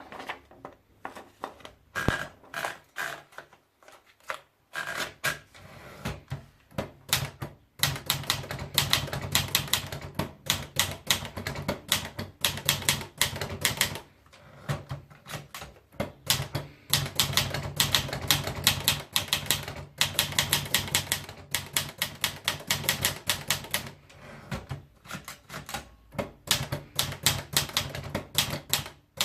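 Manual typewriter being typed on: a few slow, separate keystrokes at first, then rapid typing from about eight seconds in, in runs broken by short pauses.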